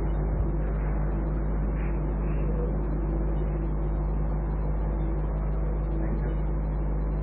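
Steady low hum with an even hiss, the background noise of a low-fidelity recording during a pause in speech.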